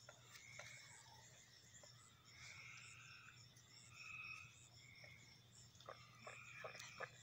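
Faint outdoor chorus of frogs and insects: short calls repeating about once a second over a steady high insect drone, with a few soft clicks near the end.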